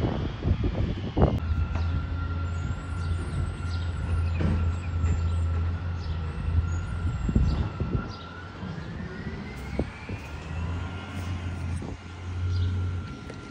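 Garbage truck's diesel engine running as the truck drives along the street, a steady low hum that eases off about two-thirds of the way through and comes back. A steady high whine runs over it, rising in pitch once.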